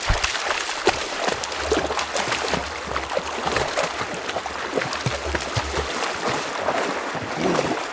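Shallow, rocky river running, with irregular splashing as a person and a dog wade through the water.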